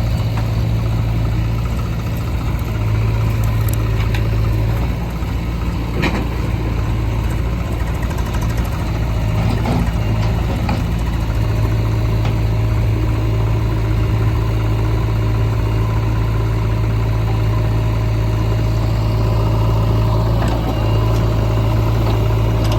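Diesel engine of a JCB 3DX backhoe loader running steadily as it works, its note swelling now and then, with a few sharp knocks, the clearest about six seconds in.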